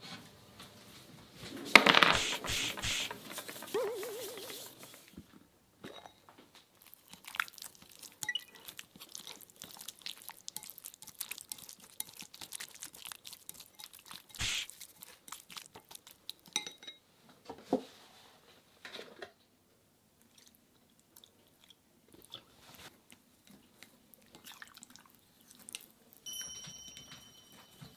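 Wooden chopsticks stirring chicken pieces and flour in a glass bowl, with scattered clicks of the sticks against the glass. About two seconds in there is a loud burst of clattering.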